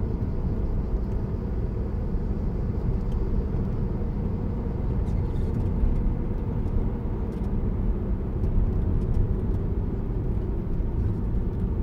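Steady low rumble of a car driving along a road, engine and tyre noise heard from inside the moving car.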